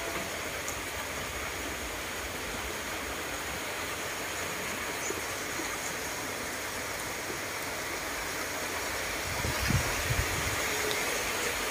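Steady rushing background noise with no goat calls, and a few low thumps about ten seconds in.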